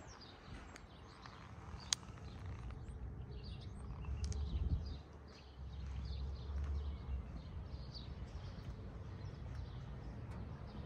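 Small birds chirping repeatedly, short high downward chirps scattered throughout, over a low outdoor rumble that swells twice midway. A single sharp click about two seconds in.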